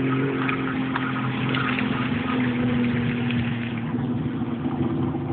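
Jet ski engine running steadily at a moderate, fairly even speed, with a hiss of water and spray over it.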